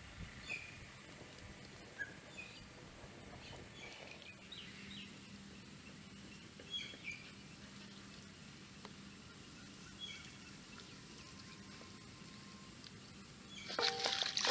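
Faint outdoor background with small birds chirping now and then. Near the end a much louder, busier sound comes in.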